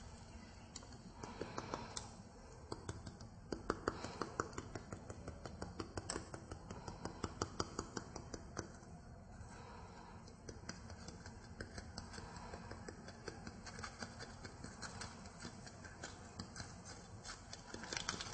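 Small handling noises of experiment equipment: irregular light clicks, taps and scratches, a few a second.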